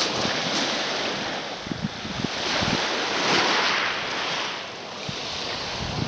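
Small waves washing up onto a pebble beach and drawing back, the foamy surf hissing. The wash swells about halfway through and eases near the end.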